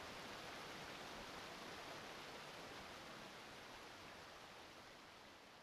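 Shallow rocky stream running over boulders, a steady rushing hiss of water that slowly fades out over the last couple of seconds.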